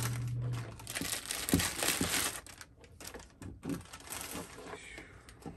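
Clear plastic packaging bags crinkling as they are pulled off an all-in-one water cooler's radiator and pump, loudest for the first two seconds or so, then quieter scattered rustles.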